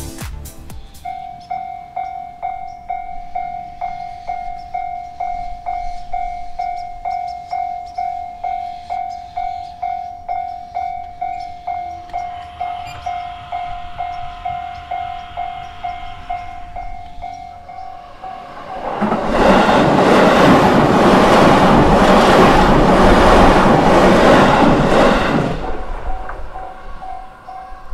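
Japanese level-crossing warning alarm ringing, a pulsing electronic bell tone at about two strokes a second, starting about a second in. About two-thirds of the way through, a train passes over the crossing loudly for about six seconds and drowns the bell, which is heard again near the end.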